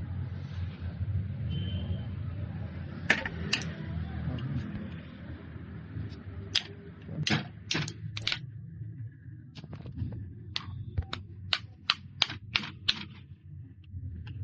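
Sharp clicks and knocks, a few at first and then a quick run of them near the end, over a steady low hum.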